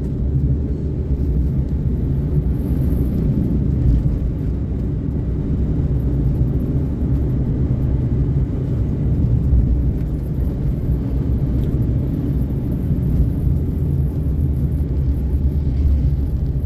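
Suzuki Karimun Kotak being driven: a steady low rumble of engine and road noise inside the cabin.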